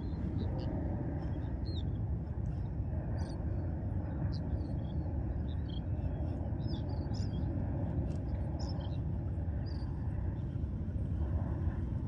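Steady low rushing of sea and wind along the rocky shore, with short high bird chirps scattered throughout.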